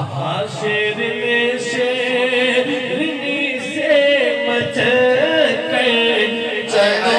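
A man singing a naat, drawing out long, wavering held notes.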